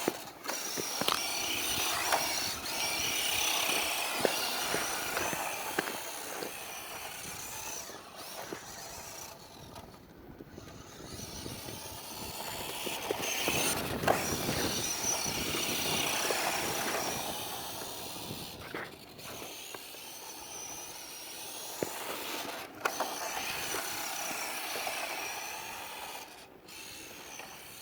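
WPL D12 1/10-scale RC drift truck driving and sliding on ice and snow: a high electric-motor whine over tyre hiss, growing louder and fading again several times as it comes close and moves away.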